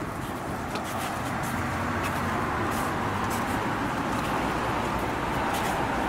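Road traffic: a car passing on the street alongside, a steady tyre and engine noise that grows a little louder over the first two seconds and then holds.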